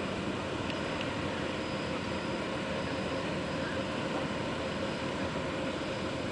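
River pushboat's diesel engine droning across the water: a steady, even hum that does not change.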